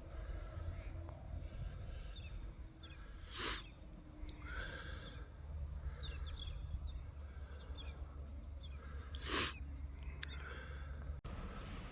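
Outdoor ambience of faint bird chirps over a low, steady rumble, broken twice by a short, loud, harsh cry about six seconds apart.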